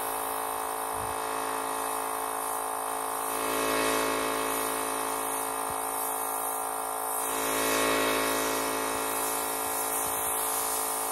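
Portable electric air compressor running steadily, a constant motor hum, under the hiss of an air spray gun laying paint. The sound swells twice, about four and eight seconds in.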